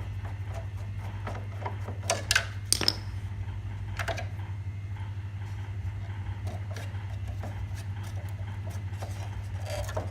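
Scattered clicks and knocks of plastic parts as the fan cover is taken off a wall-mounted split air conditioner's indoor unit, loudest in a cluster about two to three seconds in and once more at four seconds, over a steady low hum.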